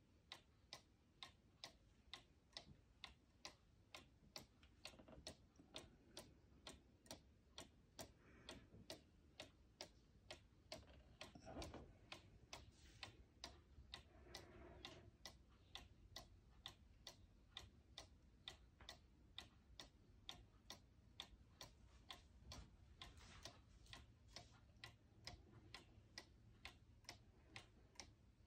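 Hubert Herr one-day mechanical cuckoo clock ticking steadily: the pendulum escapement gives an even, faint tick-tock at about two ticks a second.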